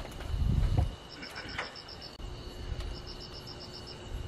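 Crickets chirping: repeated trills of quick high pulses, each about a second long and about two seconds apart, over a steady high insect tone. A brief low rumble comes in the first second.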